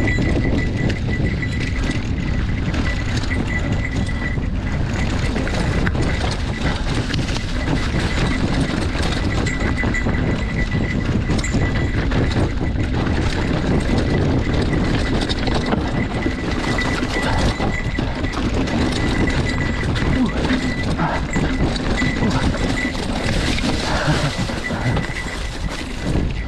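Mountain bike riding down a dirt singletrack: tyres rumbling and crunching over packed dirt and dry leaves, with a constant clatter of small knocks and rattles from the bike over the bumps and wind rushing over the microphone. A thin steady high whine runs underneath.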